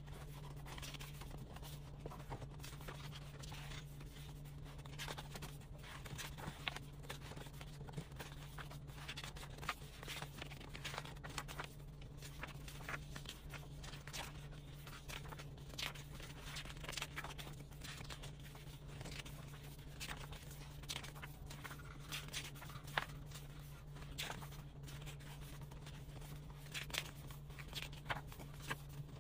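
Pages of an album photobook being turned and handled, giving many short paper rustles, flicks and soft taps over a steady low hum.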